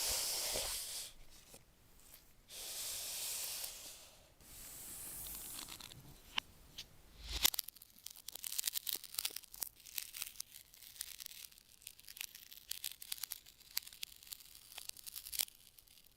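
Packaging being torn open: three long ripping strokes in the first six seconds, then several seconds of crackling, clicking handling noise.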